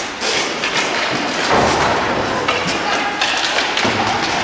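Roller hockey play: repeated knocks and thuds of sticks, ball and quad skates on the rink floor and boards over the steady noise of skates rolling, with a heavier thud about a second and a half in. Voices call out among the knocks.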